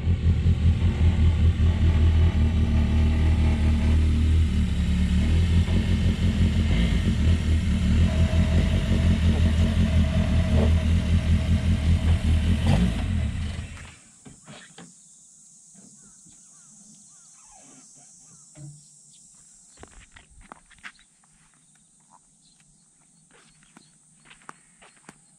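Toyota AE86 Sprinter Trueno's engine idling loudly with a lumpy, pulsing note. It cuts off abruptly about halfway through, leaving faint scattered clicks and ticks.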